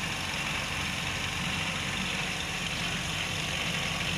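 Steady low machine hum, like an engine running at idle, holding an even level throughout.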